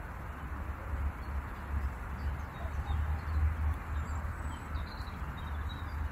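Outdoor ambience: a steady hiss over a low, wavering rumble, with faint, brief bird chirps now and then.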